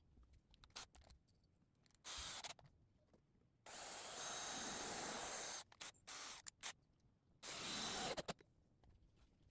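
Power drill running in four short bursts, the longest about two seconds, with light clicks and knocks in between.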